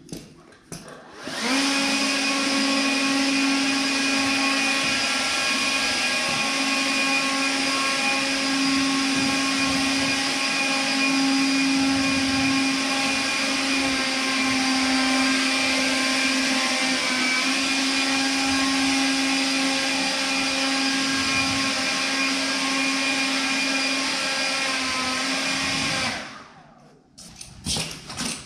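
Electric grooming machine run over a horse's coat: a steady motor hum with a whine, switched on about a second and a half in and off near the end.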